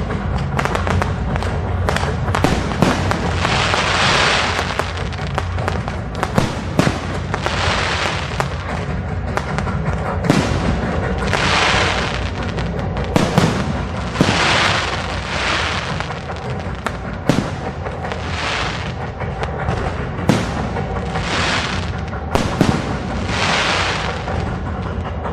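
Fireworks display: shells and comets launching and bursting in a string of sharp bangs, with repeated hissing swells of about a second each.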